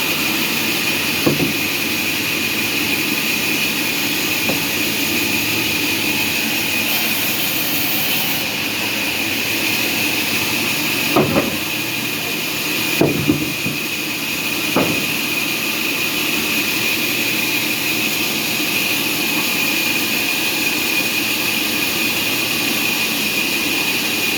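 Sawmill machinery running steadily with a high, even whine and hiss, broken by a few short knocks, most of them near the middle.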